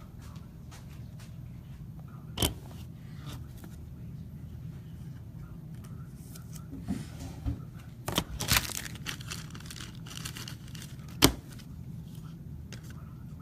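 Objects being handled: a few sharp knocks and clicks, a short stretch of rustling and clatter about eight seconds in, and the loudest knock near the end, over a steady low hum.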